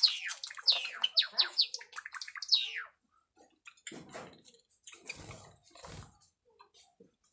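Java sparrows chirping: a quick run of sharp, downward-sliding chirps for about the first three seconds, then only a few soft rustles.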